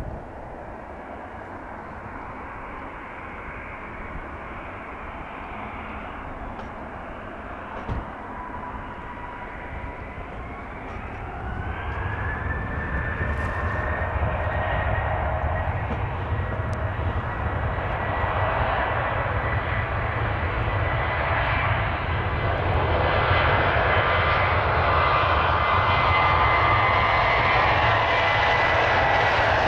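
Boeing 737-800's CFM56-7B turbofan engines spooling up to takeoff thrust: a whine rises in pitch about ten seconds in, and the engine noise then grows steadily louder.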